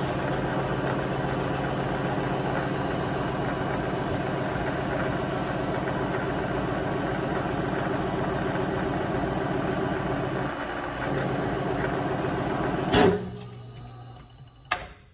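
Vevor MX400 mini lathe running with a parting blade fed by hand into a spinning hardened steel pin, a steady motor and gear whine with the hum of the cut. About 13 seconds in there is a single loud clunk as the parting cut goes wrong, and the lathe then winds down quickly, with a small click near the end.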